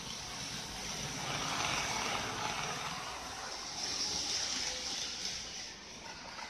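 Model train of a JNR 165 series set running along the layout's elevated track, giving a steady rolling rumble and whir that swells as it passes.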